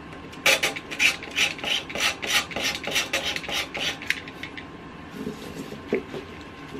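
Razor blade of a utility knife scraping paint off the edge of a painted wooden picture frame, distressing the finish so the wood shows through. Quick rasping strokes, about four or five a second, stop about four seconds in, followed by two faint strokes.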